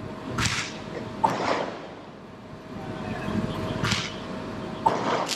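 Fireworks going off: two sharp cracks, about a second in and near the end, among several short hissing whooshes.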